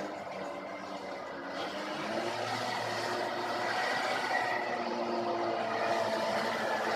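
Diesel engine of a large mining haul truck running under load as it drives toward the listener, growing steadily louder from about two seconds in, with several steady engine tones over tyre and road noise.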